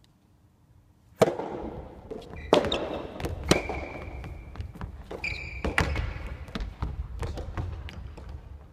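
Soft tennis rally: a sharp racket strike on the rubber ball about a second in, the loudest sound, then a run of further hits and ball bounces on the wooden gym floor, echoing in the hall. Two brief sneaker squeaks on the floor come in the middle.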